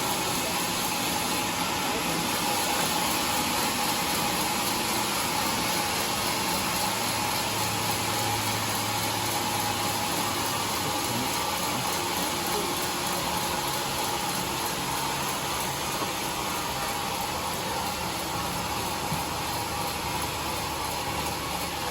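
Sawmill machinery running steadily: a constant mechanical noise with a steady hum, unchanging throughout.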